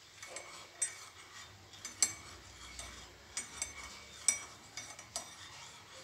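Metal teaspoon stirring a hot lemon-ginger drink in a ceramic mug, mixing in honey, with light liquid swishing and sharp, irregular clinks against the mug's sides.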